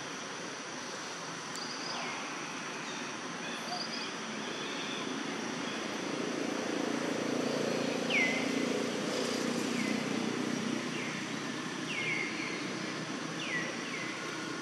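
Forest ambience: a steady high insect drone with a string of short falling bird chirps, most of them in the second half. A low rumble swells in the middle and fades away, like a vehicle passing in the distance.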